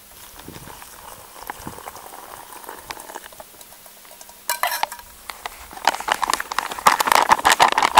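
Oatmeal and water in a camp pot being cooked and stirred: a soft wet hiss, then from about halfway through a dense wet crackle of bubbling and stirring that grows louder toward the end.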